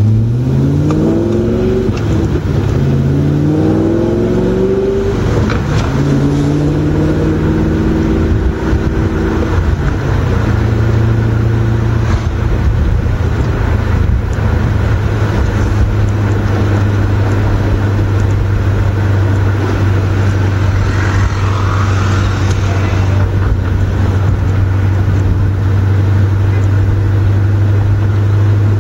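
2005 Cadillac CTS-V's LS6 V8 through a custom 3-inch exhaust (long-tube headers, X-pipe, SLP Loud Mouth II mufflers), heard from inside the cabin. It pulls through the gears, the pitch climbing and dropping back three times in the first few seconds, then settles into a steady drone at an even cruise.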